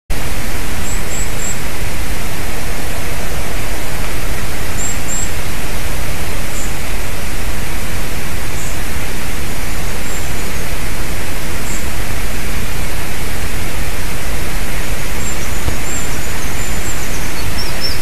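A loud, steady hiss fills the whole stretch without change. A small bird chirps faintly and high-pitched a few times over it.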